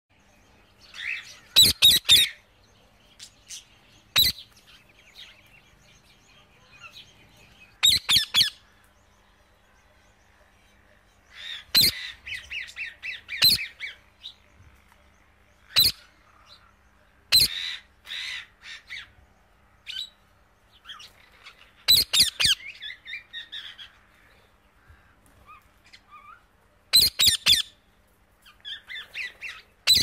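A parrot calling: groups of short, shrill calls every few seconds, about nine groups in all, with softer chattering between them.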